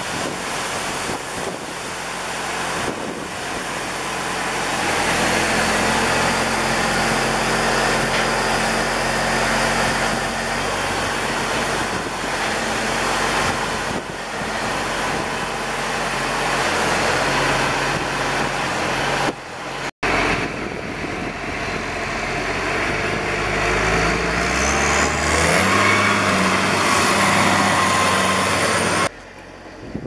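Oilseed rape seed pouring out of a tipping trailer's tailgate into a grain intake pit, a steady dense hiss, over a tractor engine running. The engine rises in pitch briefly near the end.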